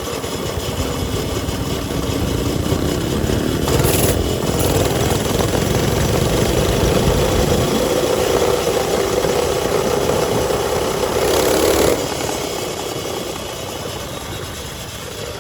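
Mini bike's small engine revving: its pitch climbs over the first few seconds, holds at high revs, then drops back toward idle about twelve seconds in.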